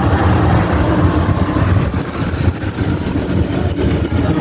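Road noise inside a moving car at highway speed: a steady low rumble of engine and tyres.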